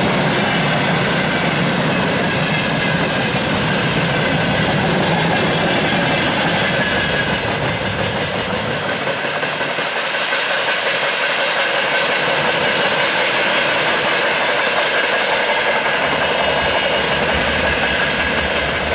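Freight train wagons rolling past on the rails, a steady loud running noise from loaded tank cars. About nine seconds in the deep part of the sound falls away as the last wagon passes and the train moves off.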